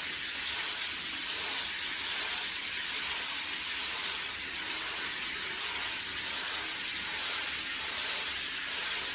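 Handheld shower head spraying water onto a dog's coat and into a tub of bathwater: a steady hiss.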